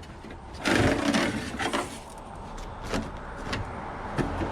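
Rummaging through a pile of curbside junk: a rustling, clattering burst of handled items about half a second in, then a few light knocks.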